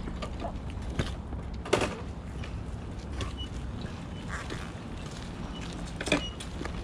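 Ducati Monster 821's L-twin engine running at low speed as the motorcycle rolls slowly, with two sharp knocks, about two seconds in and again near the end.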